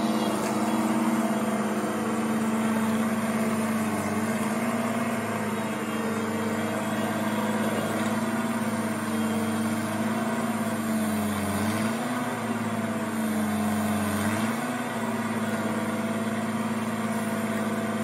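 Case 1830 Uni-Loader skid steer engine running steadily as the machine carries a heavy crated backhoe on its forks. Its pitch dips briefly twice, about two-thirds of the way through and again shortly after.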